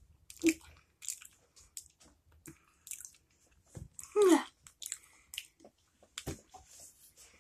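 A child chewing a mouthful of ripe banana, with scattered wet mouth clicks and smacks. About four seconds in comes a short hum from the throat that falls in pitch, the loudest sound.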